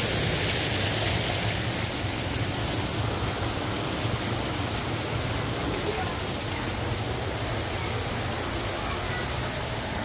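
A steady rushing noise, with faint voices under it.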